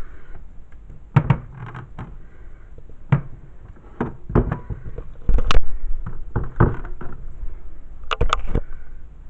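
Handling noises from unpacking a boxed mini fridge: irregular knocks, thumps and scrapes, with the loudest thump about five and a half seconds in.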